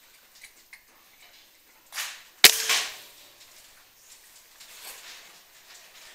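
PCP air rifle firing one shot: a single sharp crack about two and a half seconds in with a short ringing tail, preceded by a softer noise half a second earlier.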